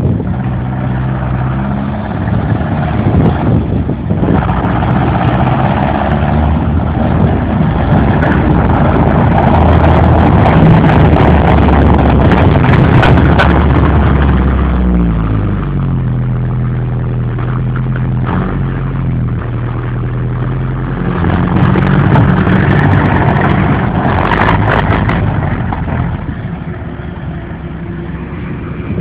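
Engine of a TTM-3902GR tracked all-terrain vehicle running loudly as the machine is driven during its run-in after repair; the engine note changes pitch a few times. There are bursts of rattling and clanking about ten seconds in and again near the end.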